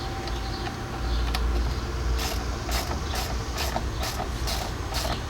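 Socket ratchet wrench tightening a lock nut onto a steel through bolt. From about two seconds in it makes quick clicking strokes, roughly two a second.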